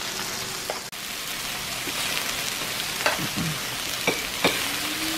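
Meat sizzling on a Lao barbecue (daht seen) tabletop grill: a steady hiss of frying, with a few sharp clicks in the second half.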